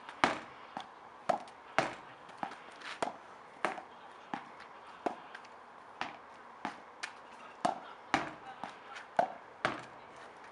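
Tennis ball rallied against a wall with a junior racket: a string of sharp knocks, about two a second and unevenly spaced, as the ball strikes the strings, the wall and the asphalt.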